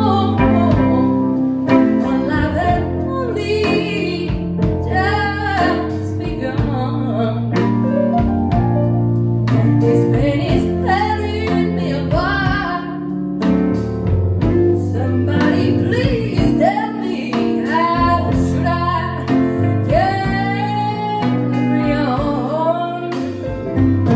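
Live blues band playing: electric guitar lead with bending, wavering notes over organ chords, electric keyboard and a drum kit.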